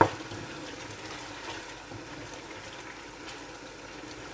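Chicken keema sizzling steadily as it fries in oil over high heat, stirred with a wooden spatula that knocks sharply against the pot right at the start.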